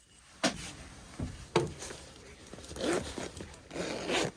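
Handling noises: two sharp clicks, then two short stretches of rasping, rustling noise.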